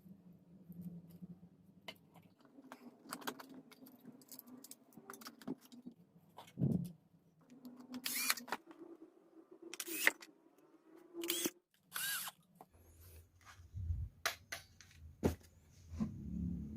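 Irregular clicks, taps and knocks of small hard parts and tools being handled on a bench, a few with a short metallic ring, over a faint low hum.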